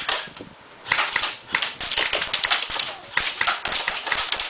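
Airsoft guns firing in bursts of rapid sharp clicks, with a short lull about half a second in before the shooting picks up again.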